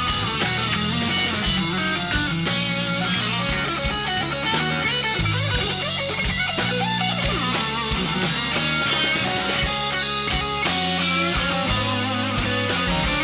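Live blues band playing an instrumental passage: an electric guitar lead with notes that bend up and down over bass and a drum kit keeping a steady beat.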